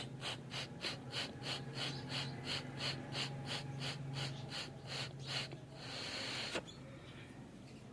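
Air wheezing through a Honda CD70 cam chain tensioner rod as pressure is put to it, in short puffs about four a second, then a longer hiss about six seconds in, over a steady low hum. The air is leaking past the tensioner's check ball, so it cannot hold pressure to keep the timing chain tight.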